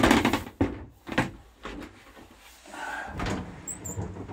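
Swivelling bathroom wall panel in a motorhome being pushed round by hand to form the shower cubicle: a few sharp knocks and bumps in the first second and a half, a softer scraping, then another knock about three seconds in.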